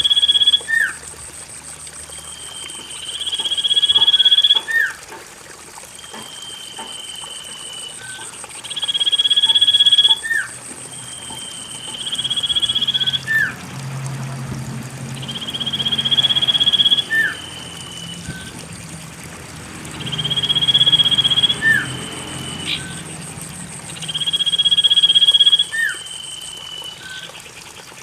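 Common iora (cipoh) singing its long, drawn-out whistle that swells in loudness and ends in a short flicked note, repeated about every three seconds, over trickling water.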